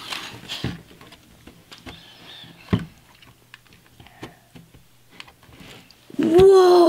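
Faint plastic clicks and handling noises from a Qixels 3D maker toy as its tray is lifted out, a scattering of small knocks spread through. In the last second a child lets out a long, loud "whoa" that rises and falls in pitch.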